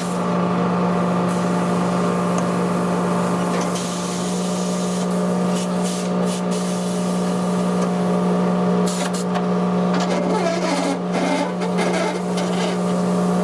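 Tyre-shop machine running with a loud, steady hum, with rubbing and clicking sounds coming in from about five seconds in.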